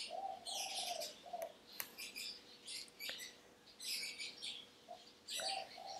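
Small birds chirping repeatedly in short bursts, with a couple of faint clicks.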